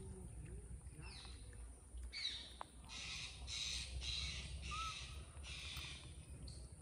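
A crow cawing: a run of about five harsh caws starting about two seconds in, over a steady low rumble.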